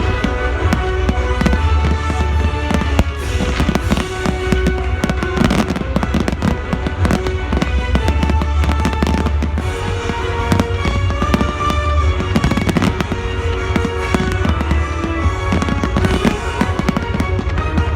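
A fireworks display bursting rapidly and continuously, many bangs and crackles a second, over loud music.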